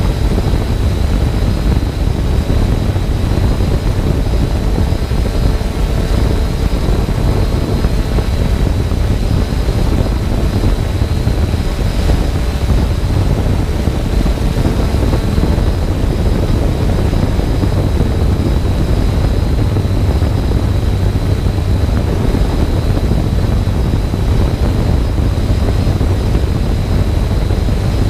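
Small multirotor drone's electric motors and propellers running steadily while it hovers, heard from the camera on board: a loud, even low rush of prop wash with a steady high motor whine over it.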